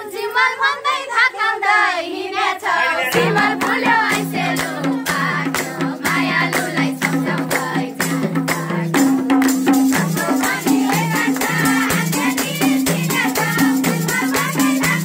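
Group of women singing together with hand clapping. About three seconds in, a steady pulsing low beat joins and the claps grow dense and rhythmic.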